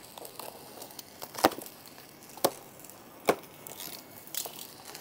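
Three sharp knocks roughly a second apart, the first the loudest, over a faint background crackle.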